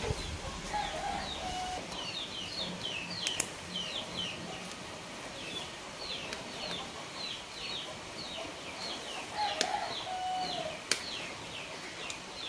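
Small birds chirping over and over in short, high, falling notes, with a chicken clucking twice, about a second in and again near ten seconds. A few sharp clicks sound in between.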